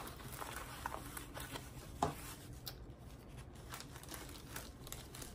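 Faint rustling of a rolled diamond-painting canvas being handled and slid across a wooden table, with a soft knock about two seconds in.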